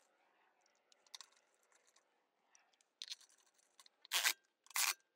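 Hand ratchet snugging wheel lug bolts: a few faint ticks first, then from about three seconds in short rasps of pawl clicks, one on each back-stroke, roughly every half second to second.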